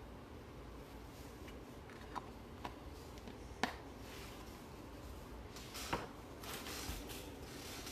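Objects being handled on a table: a few sharp clicks and taps, the loudest about three and a half seconds in, then rustling near the end.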